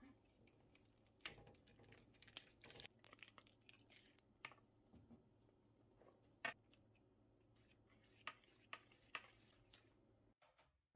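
Near silence with faint scattered clicks and rustles of small things being handled; the sharpest click comes about six and a half seconds in.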